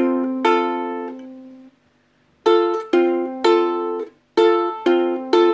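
Ukulele with two strings plucked together at a time, each pair ringing and then damped. One pair sounds about half a second in and rings for about a second. After a short silence, three pairs follow in quick succession, then after another brief pause, two more.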